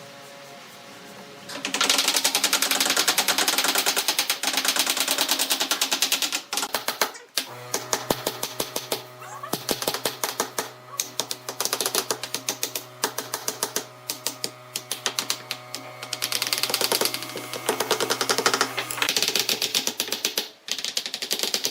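A dense, rapid run of sharp clicks and taps, many per second, with a few short breaks, and a steady low hum joining in through the middle.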